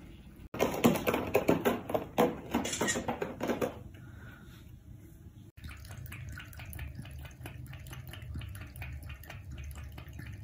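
A domestic cat scratching at the litter in its litter box, loud and crackly for about three seconds, covering up after urinating. Then, after a cut, the same cat lapping water from a bowl in a quick, steady rhythm.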